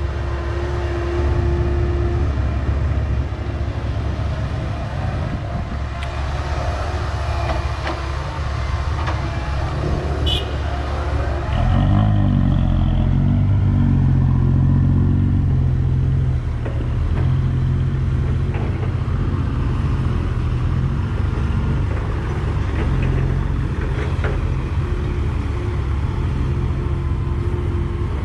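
Komatsu hydraulic excavator's diesel engine running under working load, with light clanks. About twelve seconds in the engine note rises and grows louder for a few seconds, then settles.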